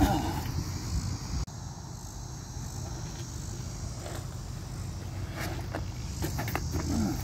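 BMX bike being ridden and hopped: tyres rolling on concrete and a few sharp knocks from the bike landing, over a steady low rumble on a phone microphone.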